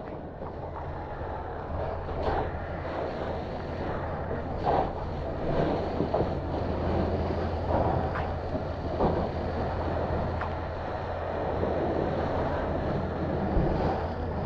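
A steady low engine drone, with scattered knocks and clatter over it.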